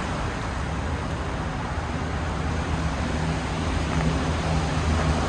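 Steady outdoor background rumble with a low hum and even noise, of the kind made by distant road traffic.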